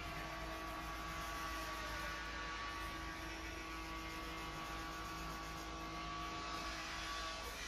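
Steady electrical hum: several held tones over a low rumble and a light hiss, with no change in pitch or level.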